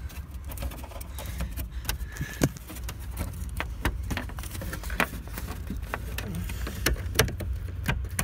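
Irregular clicks and plastic rattles from a wiring-harness connector and loose wires being handled and plugged back together, over a steady low rumble, with a few sharper clicks standing out.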